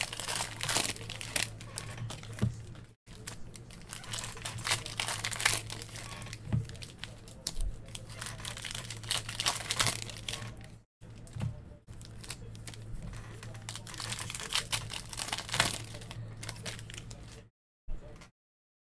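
Foil football-card pack wrappers being torn open and crinkled by hand, a dense crackling with many sharp little snaps. The audio cuts out completely for a moment a few times.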